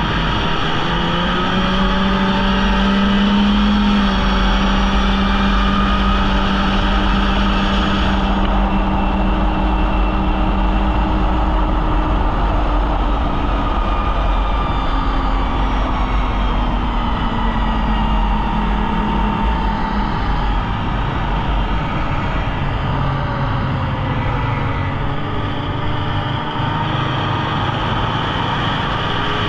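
Polaris Indy snowmobile engine running under throttle while riding, over a steady rushing noise. Its pitch climbs in the first few seconds, holds, falls away about halfway through, and picks up again near the end as the throttle changes.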